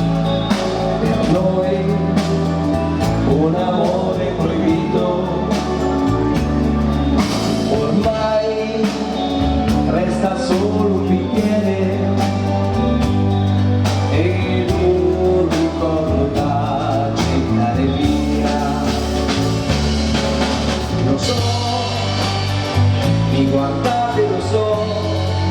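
A live dance orchestra playing a slow tune, with a bass line, regular drum strokes and melody instruments.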